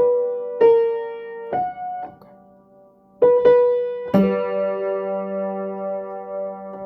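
Piano notes played slowly and a little haltingly: a few single notes, a short pause, then more notes and a chord struck about four seconds in that is held ringing.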